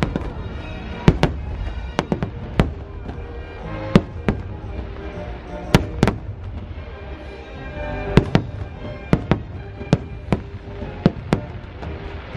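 Aerial fireworks shells bursting overhead in more than a dozen sharp bangs, irregularly spaced and often in quick pairs, over the show's music.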